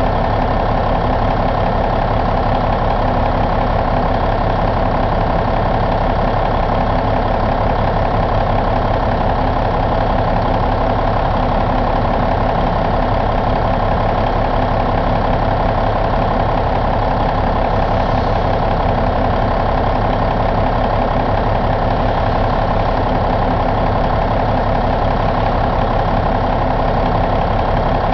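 1994 Cummins N14 CELECT turbocharged inline-six diesel engine idling steadily, with an even, unchanging note.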